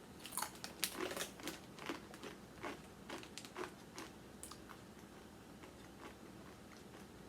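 Tortilla chip being bitten and chewed: a run of short, crisp crunches over the first four seconds or so, thinning to faint chewing.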